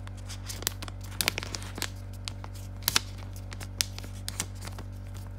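Crinkling and rustling of the Apple Watch box's documentation pack, a paper and plastic sleeve, being lifted out and handled, with scattered sharp crackles, the loudest about one second and three seconds in. A steady low hum runs underneath.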